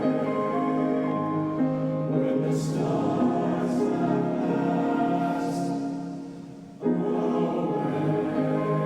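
Youth choir singing slow, sustained chords, with the hiss of sung "s" sounds. The voices fade away about six seconds in, then the music comes back in suddenly a moment later.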